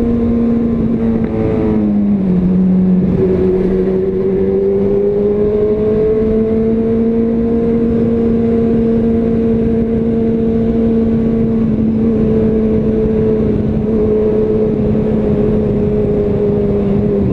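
Honda CB1000R's inline-four engine running steadily while riding. Its pitch dips about two seconds in, then holds level, under a steady rush of wind noise.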